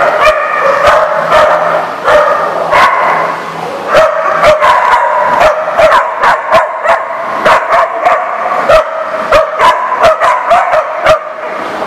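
Dogs barking and yipping during rough play. Sharp barks come about twice a second through the second half, over higher-pitched yelps.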